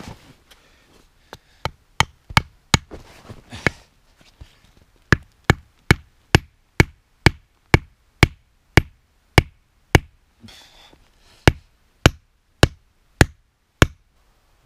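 Back of a hatchet hammering a sharpened wooden stake into the ground: a long run of sharp wooden knocks, about two a second, with a few short pauses.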